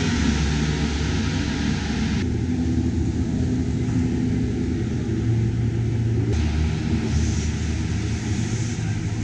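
Racing car engines running, a dense steady mechanical sound. It changes abruptly about two seconds in and again about six seconds in.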